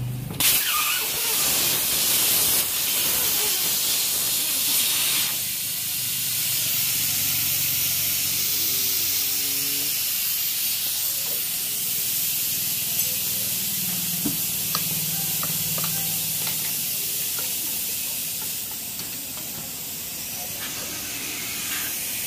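A steady hiss, louder for the first five seconds, with a few faint metallic clicks near the middle as a tyre lever works a tyre bead off a motorcycle alloy wheel.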